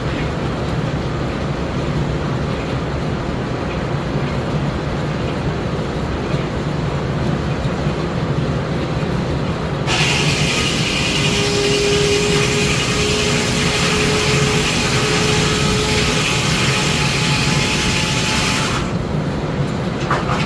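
Steam-engine-driven sawmill running with a steady low mechanical drone. About ten seconds in, a much brighter, higher sound with a faint whine joins for about nine seconds, then stops abruptly.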